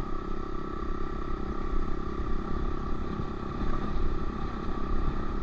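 Honda CRF125F's air-cooled single-cylinder four-stroke engine running at a steady, even throttle while riding, with a rough low rumble under it.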